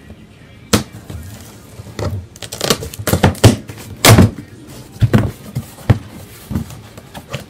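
Flaps of a large corrugated cardboard box being pulled open and folded back: a run of scrapes, crinkles and hollow thumps of cardboard, busiest in the middle.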